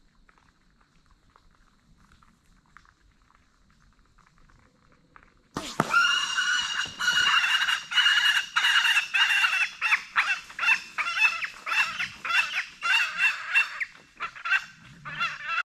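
Feral hog squealing. After about five seconds of near quiet, loud, high squeals break out suddenly and go on in a rapid pulsing series, about one to two a second.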